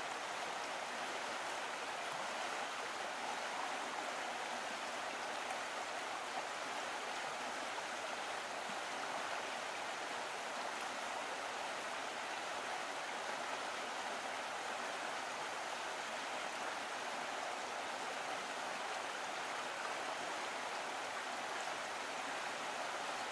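A steady, unchanging rushing hiss, even throughout, with no rhythm or separate events.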